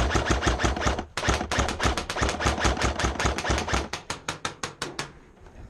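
Airsoft rifle firing rapidly: a fast, even rattle of shots at about nine a second, with a short break about a second in, growing fainter and stopping about five seconds in.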